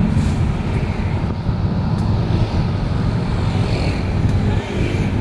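Steady rumble of city road traffic, motorcycles and cars passing.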